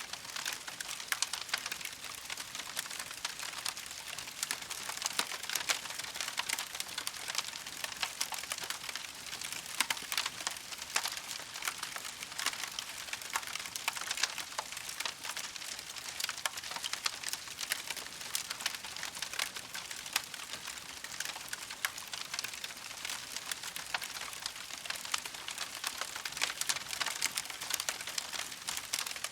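Campfire crackling steadily, with dense small pops and snaps over a soft high hiss.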